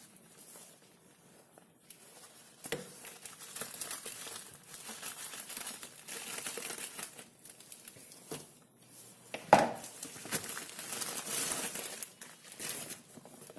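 Plastic courier mailer bag being torn open by hand, its thin plastic crinkling and rustling in irregular bursts, with a louder sharp crackle about nine and a half seconds in.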